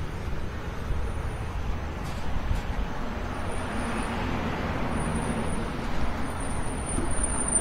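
Road traffic going by: a steady rumble, with a vehicle passing that swells about four seconds in and then fades.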